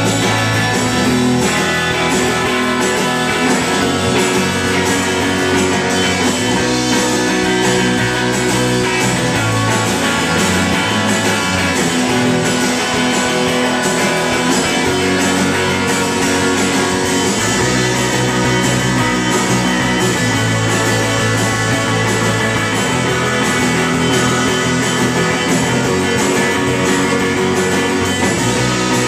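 Live rock band playing loud and steady: electric guitar, bass guitar and a drum kit with cymbals, the bass line moving to a new note every few seconds.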